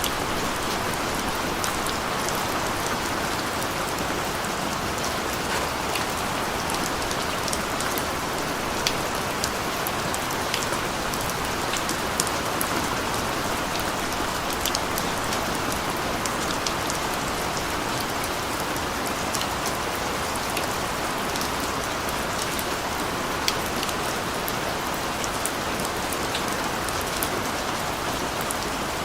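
Steady rain falling on a street, a dense even hiss with many individual drops ticking sharply on hard surfaces.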